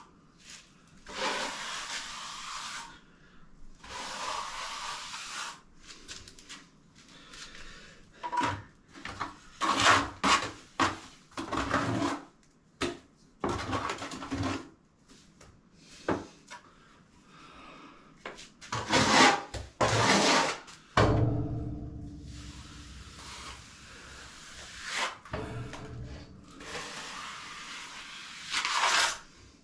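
Hand float rubbing and scraping over fresh cement render on a wall in repeated strokes with short pauses between, fining the render down flat. The loudest strokes come about two-thirds through, followed by a brief low rumble.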